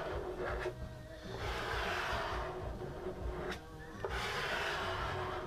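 Plastic squeegee rubbing in long, slow strokes across wet adhesive grip film on a board deck, pressing the film down and pushing out the water beneath it; about three swells of scraping hiss.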